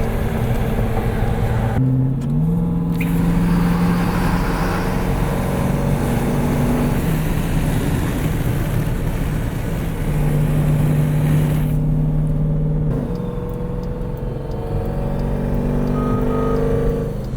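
Twin-turbo Jeep SRT's V8 engine running under way, with its engine note stepping up about two seconds in and shifting again twice later on.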